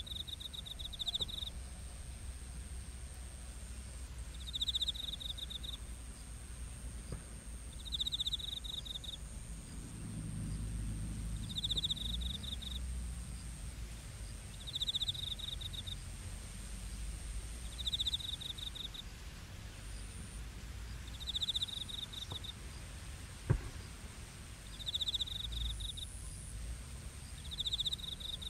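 Crickets trilling in short pulsed bursts, one about every three seconds, over a steady thin high-pitched tone. A faint low rumble swells and fades from about ten to thirteen seconds in, and a single sharp tick comes about three-quarters of the way through.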